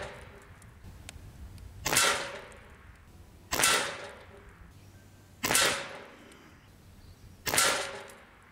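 Crosman ICON .22 PCP air rifle firing four shots about two seconds apart, each a sharp crack that fades quickly. The rifle is running out of air, so these shots go out on falling reservoir pressure.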